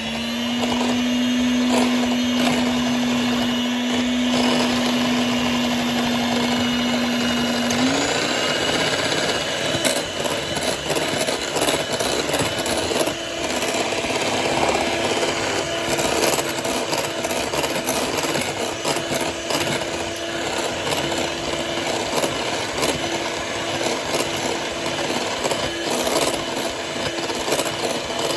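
Electric hand mixer whisking beaten eggs in a glass bowl: a steady motor whine over the churning, splashing beaters, with occasional clicks of the beaters against the bowl. The motor note steps up in pitch about eight seconds in and holds there.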